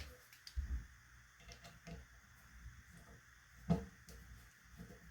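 Faint clicks and taps of tools and metal parts as the rear sight is worked off a Remington Rolling Block rifle, with a low thump early on and one louder knock about two thirds of the way through.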